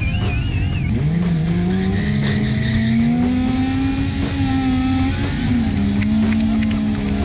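Sport motorcycle engine held at high revs during a burnout, its rear tyre spinning on the asphalt. The engine note climbs in the first seconds, then wavers and dips a few times while staying high.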